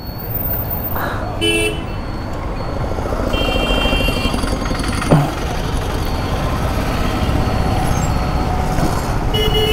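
Road traffic rumbling steadily, with vehicle horns honking in short blasts three times: briefly about a second and a half in, longer around four seconds, and again near the end. A single short loud knock about five seconds in.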